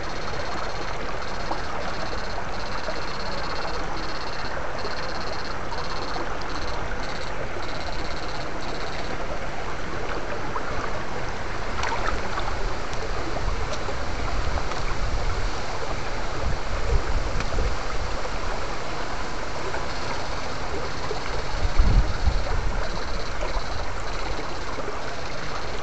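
Shallow stream water rushing steadily over rocks close to the microphone. A faint high whine starts and stops in the first third and again near the end, and a few low bumps come about 22 seconds in.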